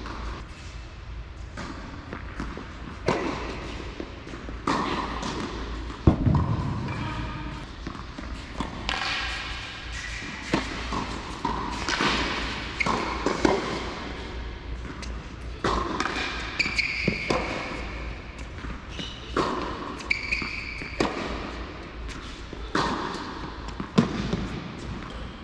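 Tennis balls being struck by rackets and bouncing on an indoor hard court, a string of sharp pops, each echoing briefly around the hall.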